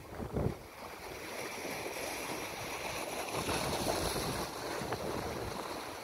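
Sea water washing in among shoreline rocks: a steady surf wash that swells a little in the middle and eases toward the end. A brief gust of wind hits the microphone at the very start.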